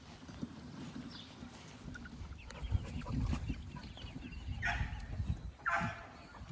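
Chickens clucking, with two louder, harsher squawks near the end, over a low rumble on the microphone.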